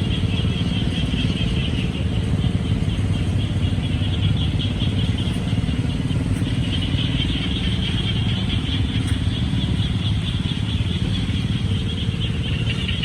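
A chorus of frogs calling from a rain-flooded pond, a dense pulsing high-pitched trill, over a steady low engine rumble.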